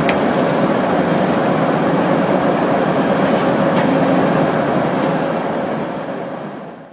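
Electric Badger tracked bucket loader running and digging into a pile of broken rock: a steady, dense mechanical noise that fades out near the end.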